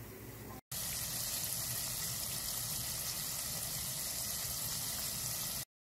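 Hot oil bubbling and sizzling steadily as food deep-fries in a Presto Kitchen Kettle electric multi-cooker. The sound breaks off for a moment about half a second in, comes back louder, and cuts off abruptly near the end.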